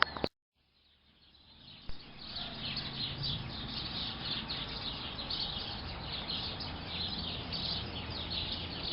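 Small birds chirping in quick, overlapping high chirps. The chirping fades in after about a second of silence and grows dense about two and a half seconds in.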